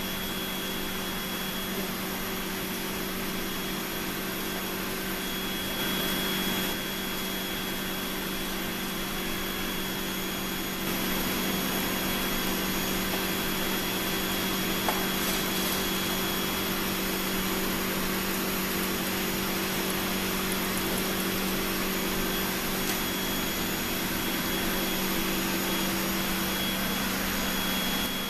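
Cone calorimeter's exhaust blower running steadily: a constant whooshing hum with a faint high whine, a little louder from about eleven seconds in.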